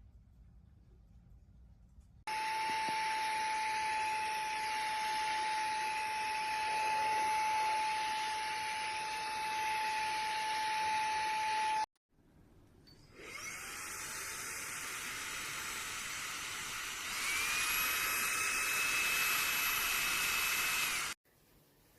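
Xiaomi Mijia cordless handheld vacuum cleaner running with a steady high motor whine, switched off after about ten seconds. It is switched on again, spins up with a rising whine, steps up louder partway through and cuts off.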